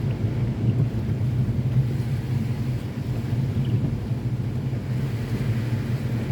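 A car driving on wet streets, with a steady low rumble of engine and road noise.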